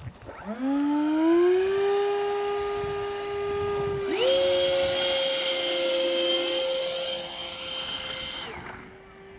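Electric ducted-fan (impeller) motors of a foam RC plane spinning up. One whine rises in pitch and holds steady. About four seconds in, a second, higher whine joins with a loud rush of air, and it cuts out about a second before the end while the lower whine keeps running.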